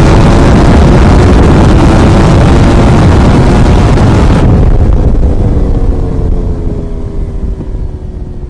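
Ducati V4R race bike's V4 engine running hard under way with a loud rush of noise. About halfway the throttle closes: the hiss cuts out abruptly and the engine note slowly falls and fades.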